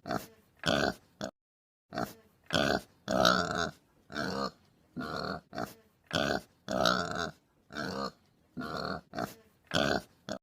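Domestic pig grunting: a long run of short, rough grunts, one after another with brief gaps.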